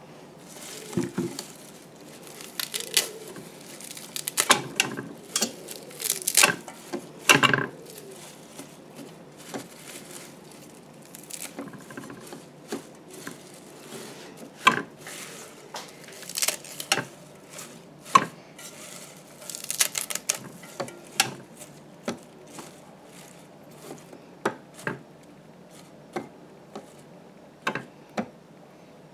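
Scattered clicks and knocks of a glass lid and a stainless-steel mini bowl being handled, with the rustle of damp parsley being pushed down by hand toward the chopping blade. The parsley pieces are too big for the blade to draw them down.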